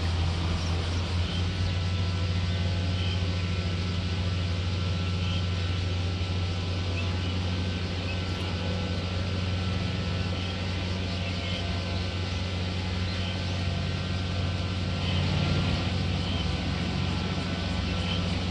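A motor running steadily at constant speed, a loud low hum with a faint higher whine over it.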